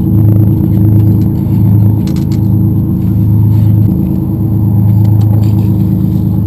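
Party boat's engine running with a steady deep drone that swells and eases about once a second.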